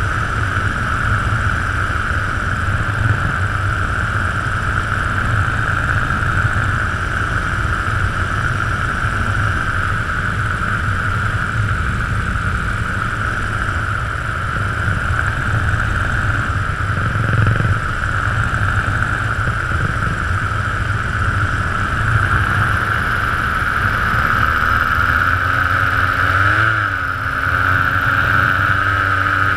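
Paramotor engine and propeller running steadily in flight, a constant loud drone, with a brief rise and dip in pitch a few seconds before the end.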